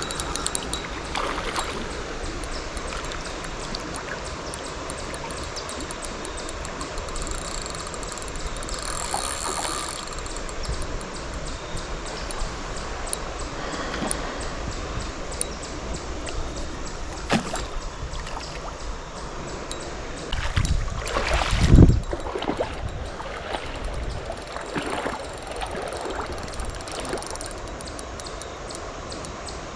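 River water flowing steadily, with scattered small knocks, and a louder, low rumbling surge about two-thirds of the way through.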